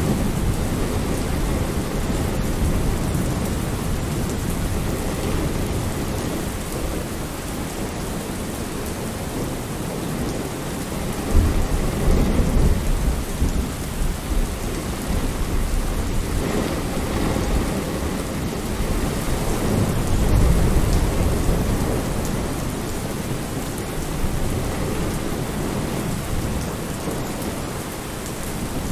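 Steady rain with low rolls of thunder, the stronger ones about eleven seconds in and again about twenty seconds in.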